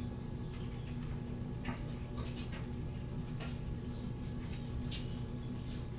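Faint, scattered soft clicks and ticks of thick wet shaving-soap lather worked between the fingers and on the shaving brush, over a steady low hum.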